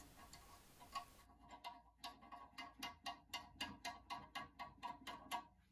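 Plastic finger nut being spun off the threaded shank of an old toilet tank flush lever, giving a faint, rapid run of small clicks, several a second, that stops just before the end.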